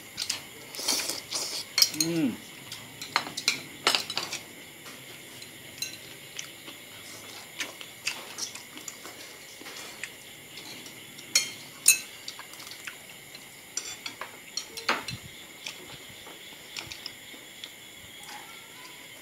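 Metal spoons and forks clinking and scraping on ceramic plates and bowls as several people eat, in scattered sharp clinks, busiest in the first few seconds, with two sharper clinks about twelve seconds in.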